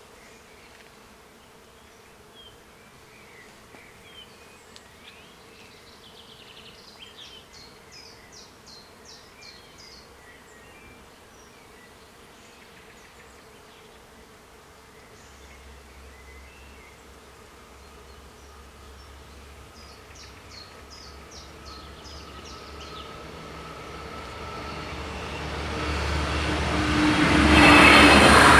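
A DB Talent diesel multiple unit approaches a level crossing. A low rumble sets in about halfway through and grows steadily louder, turning into the full noise of the passing train near the end. Before that, only faint, scattered high chirps are heard.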